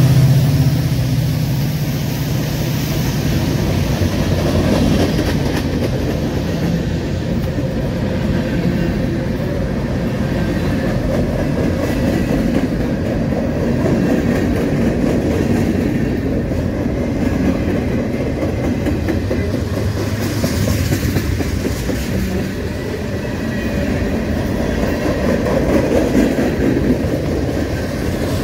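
A diesel locomotive's engine passing close in the first couple of seconds, then a long freight train of hoppers, gondolas and boxcars rolling steadily by, steel wheels running on the rails.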